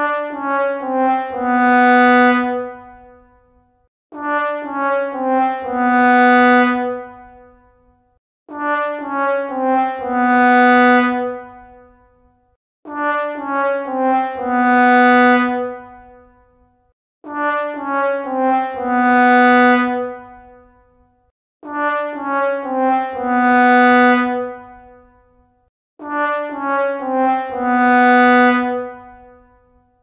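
Sad trombone comedy effect: a trombone plays three short descending notes and then a long, low held final note, the classic 'wah-wah-wah-waaah' cue for failure or disappointment. The phrase repeats about every four seconds, seven times.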